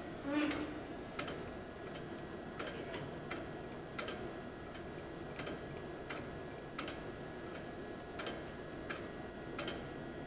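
Large San Shing gap bed engine lathe running in its low speed range, around 25 RPM, with a steady low hum. A light mechanical tick repeats about every 0.7 seconds, with a slightly louder knock about half a second in.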